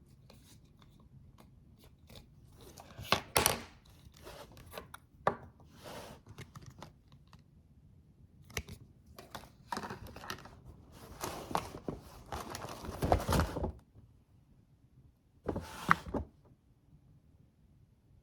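Packaging handled and opened by hand: irregular bursts of paper and cardboard rustling, tearing and crinkling, with a few knocks. The longest stretch of tearing and rustling comes a little after the middle.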